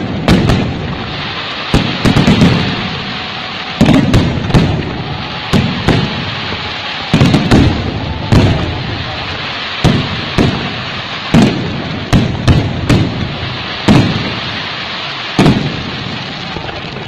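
Aerial fireworks display: shells bursting in quick succession, about one or two sharp bangs a second, each with a deep thud, over a continuous background hiss.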